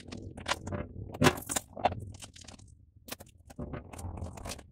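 Thin plastic bottle and its plastic wrapping crinkling and crackling as they are handled and cut open with scissors, in irregular snaps and clicks.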